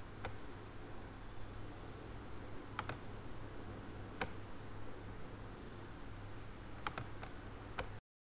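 A few sharp computer mouse clicks, single ones spaced out and a quick run of three near the end, over a steady low electrical hum and hiss. The sound cuts off abruptly just before the end, where the screen recording is stopped.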